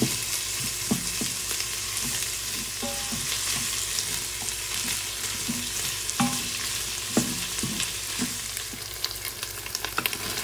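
Chorizo and diced carrots, onion and celery sizzling in an Instant Pot on its sauté setting, stirred with a wooden spoon that knocks and scrapes against the pot now and then. There is a run of quick clicks near the end.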